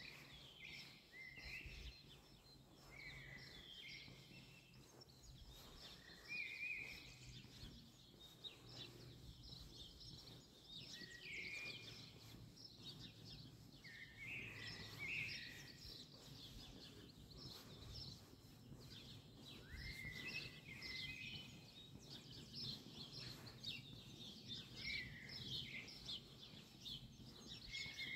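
Small songbirds chirping and singing in short, repeated phrases, over a faint steady low background hum.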